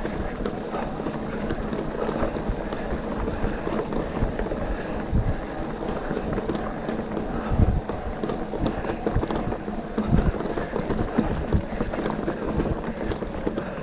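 Mountain bike riding down a dirt forest trail. Tyres rumble over the ground, wind buffets the microphone, and there are frequent short knocks and rattles from the bike over bumps.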